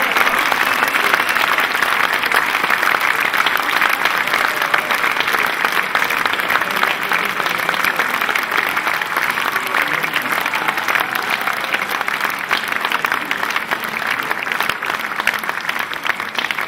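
Audience applauding steadily after a choir performance, dying down slightly near the end.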